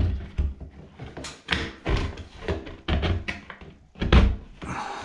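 Exhaust fan housing knocking and bumping against the plasterboard ceiling as it is pushed up into the cutout: a string of irregular thunks, the loudest about four seconds in.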